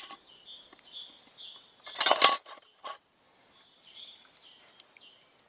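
Brass Trangia spirit burner set down into the aluminium stove base, one short metallic clatter about two seconds in. Small birds sing short high phrases throughout.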